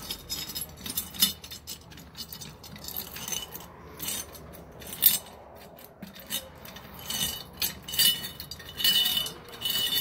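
Keys on a keyring jangling and clinking against the metal lid of a Rhino Vending gumball machine as a key is worked in the lid lock: a steady run of short metallic clicks and jingles, with brighter ringing jingles near the end.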